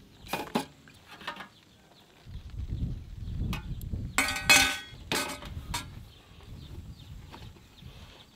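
Metal clatter from a steel cooking pot and a portable butane gas stove being moved and handled on a wooden table: scattered clicks, then a cluster of sharp ringing clanks about four to five seconds in, over a low rumble of handling noise.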